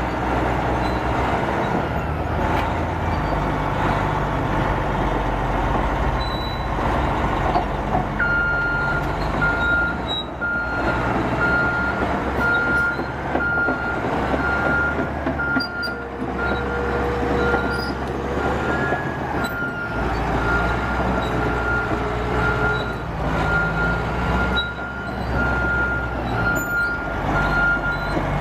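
Caterpillar D8R bulldozer's diesel engine running steadily, with its reverse alarm beeping about once a second from about eight seconds in as the dozer backs up. The engine note shifts about two thirds of the way through.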